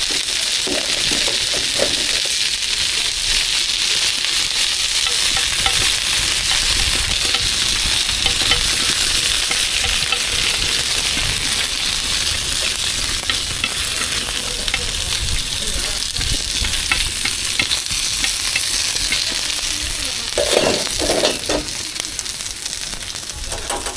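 Food frying in hot oil at a street food stall, a steady sizzle.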